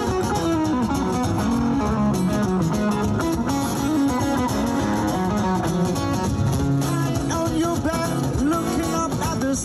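Live solo acoustic guitar being played, with a man's voice singing along into the microphone.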